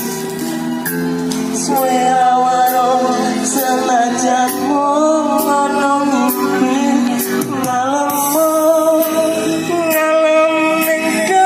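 Music: a wavering, gliding melodic lead line over sustained accompaniment and a steady beat with regular cymbal hits.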